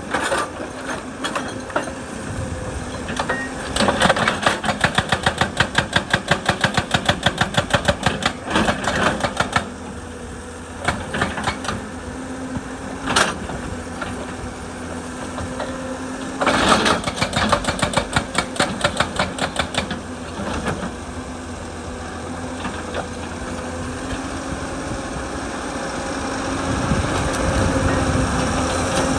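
Excavator's rock breaker hammering in two long runs of rapid, evenly spaced blows over the steady running of the excavator's engine, with one sharp single knock in between. The engine grows louder near the end.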